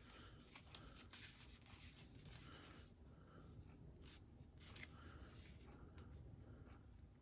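Faint scratching and rustling of fingers picking at and peeling the tape that holds a rolled diamond painting canvas, with scattered small ticks.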